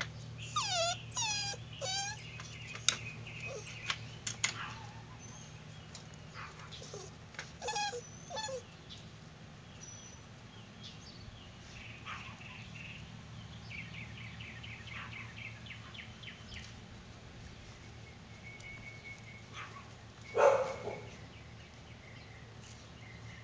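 Puppies whining and yelping in short high cries that fall in pitch, clustered in the first few seconds, with scattered yips after that and one louder yelp about twenty seconds in.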